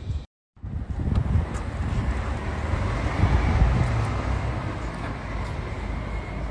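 A car moving, heard as a steady low rumble with wind buffeting the microphone. The sound cuts out completely for a moment just after the start.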